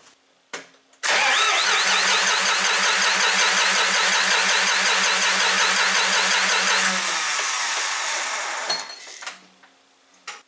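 John Deere 5400 tractor's diesel engine cranked on the starter for about six seconds without firing, an even pulsing whir that then winds down. The injector lines are cracked open to bleed out air let into the fuel system by a new fuel filter that was not filled with fuel, so the engine does not start.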